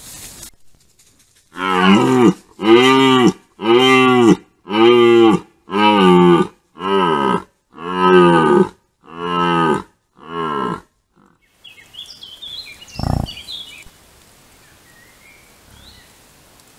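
Red deer stag roaring in the rut: about nine deep, drawn-out roars in quick succession, each under a second long, stopping about eleven seconds in.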